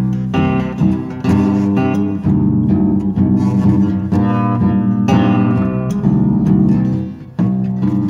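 Badly tuned guitar strummed in slow ringing chords, a new chord roughly every second, with a brief drop in level about seven seconds in.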